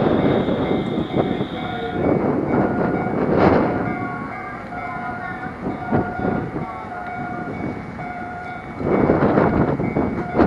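Enoden (Enoshima Electric Railway) electric train running, heard from inside the carriage: a steady rumble with a thin whine that comes and goes and a couple of sharp knocks, getting louder near the end.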